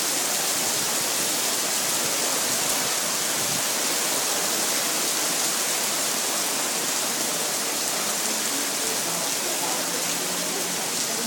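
Heavy storm rain pouring down steadily, a constant rush with no letup.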